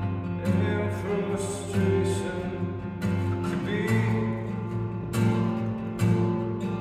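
Acoustic guitar strummed in a slow rhythm, a chord struck about once a second and left ringing.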